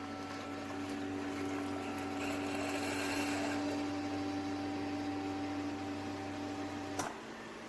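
Keurig K-Mini single-serve coffee maker running its brew cycle: a steady pump hum with a gurgling hiss, which stops abruptly with a click about seven seconds in.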